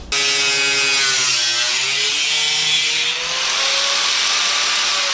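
Angle grinder cutting through a thin steel computer-case side panel: a loud, steady hiss of the disc on metal over the motor's whine. The whine sags in pitch about a second and a half in as the disc bites, then climbs back.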